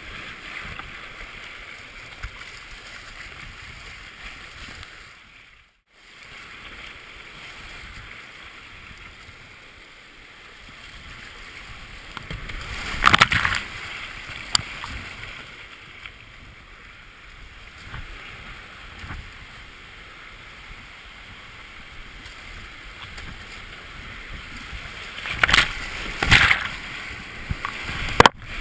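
Whitewater creek rapids rushing around a kayak, a steady wash of water, with loud splashes of water onto the spray skirt about halfway through and twice more near the end. The sound drops out briefly about six seconds in.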